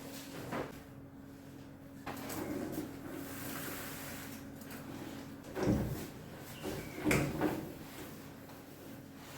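A few knocks and bumps, the loudest about halfway through and again a second or so later, like a drawer or cupboard being handled, over a steady low hum.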